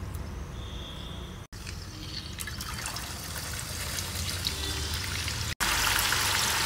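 Peeled field beans (avarekalu) tipped into hot oil in a steel kadai, setting off a crackling sizzle that builds and grows louder near the end as they deep-fry.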